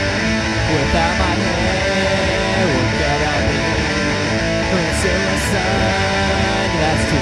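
Pop-punk band music with electric guitar, with no singing: the instrumental opening of a song, a melodic line bending between notes over the full band.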